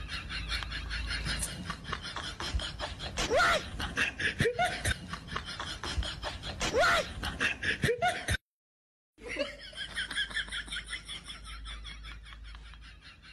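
Continuous laughter, with a few short rising calls mixed in. All sound cuts out briefly a little past halfway, then the laughter resumes.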